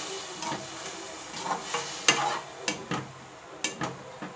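Sliced broad beans sizzling as they fry in oil in a metal kadai, stirred with a perforated metal spatula. Several short scrapes and knocks of the spatula against the pan stand out over a steady hiss.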